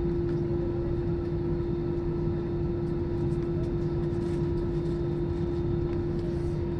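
Airliner cabin noise while taxiing to the gate after landing: the engines run with a steady hum and a low rumble that hold constant throughout.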